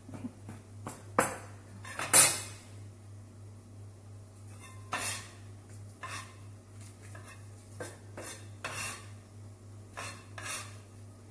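Kitchen utensils and dishes clinking and knocking now and then, a metal fork among them, the loudest knock about two seconds in, over a steady low hum.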